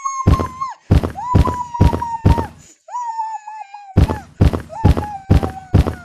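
A steady thumping beat, about two and a half thumps a second, under one long high held note that slowly falls in pitch. The beat drops out for about a second in the middle while the note wavers on, then comes back.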